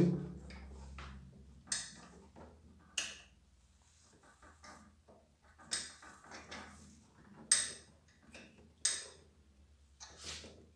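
Small metallic clicks and taps, about six spaced a second or two apart, as overflow-valve parts are handled and seated in the brass pump head of a Kärcher HD 5/15 C pressure washer.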